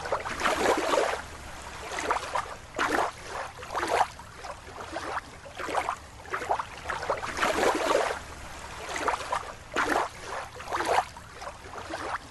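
Water sloshing and splashing in irregular swishes, one or two a second.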